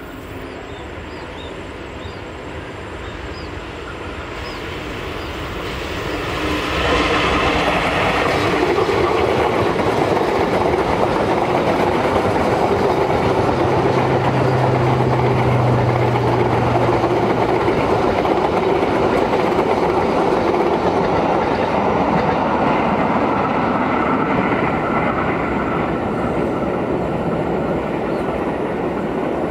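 A GE-built CC 201 diesel-electric locomotive and its long passenger train running past on curved track. The sound grows as the locomotive nears and is loudest about seven seconds in. The carriages' wheels on the rails then keep up a steady rumble, with a low hum around the middle, easing off near the end as the last cars go by.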